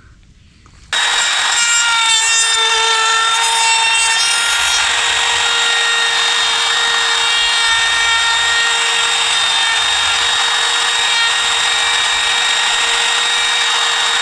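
Hercules electric router switched on about a second in and running at steady speed with a high whine, its bit cutting a door-hinge mortise into the wooden door through a plastic template jig.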